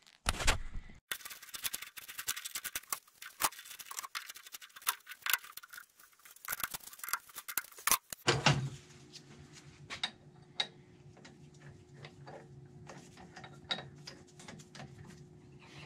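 Metal clinks, clicks and rattles as a workpiece is fitted and tightened in a metal lathe's chuck. About eight seconds in the clatter stops and a steady low hum remains, with occasional light clicks.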